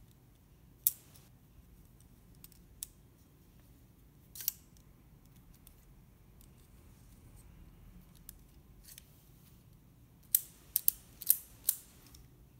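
Sharp clicks of hard plastic parts on a 3D-printed repeating crossbow being handled and fitted together by hand: single clicks about a second in and about four and a half seconds in, then a quick run of about five clicks near the end.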